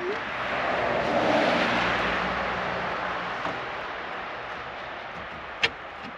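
A vehicle passing by: a broad rush of noise that swells to its loudest about a second in, then slowly fades. A single sharp click of a tool on metal comes near the end.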